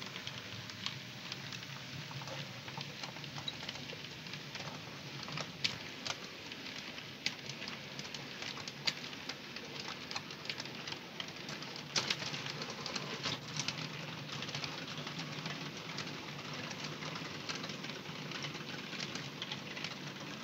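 OO gauge model freight trains running on the layout's track: a steady low hum with a continuous rattle of wagon wheels, and scattered sharp clicks from the wheels on the rails.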